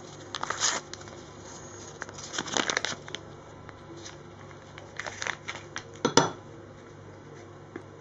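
Handling noises from a metal spoon and bowl while ingredients are spooned in: short bursts of clicking, scraping and rustling, about four times.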